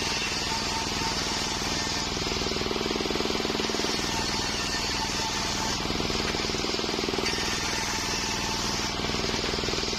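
Homemade circular sawmill running steadily, a continuous machine drone with a fast even pulse and no breaks.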